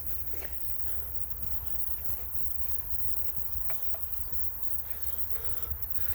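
Footsteps on an outdoor path, a few faint scattered steps over a steady low rumble.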